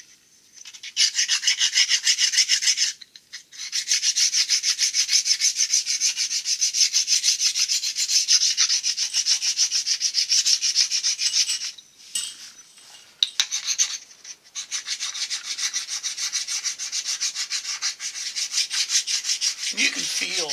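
A hard, lightly oiled honing stone rubbed quickly back and forth across the cast-iron bell-housing flange of a Studebaker V8 block: a fast, even scraping rasp that stops briefly about three seconds in and again for about two seconds past the middle. The stone is dressing off nicks and burrs so the bell housing will sit flat, and the rasp changes as the surface comes smooth.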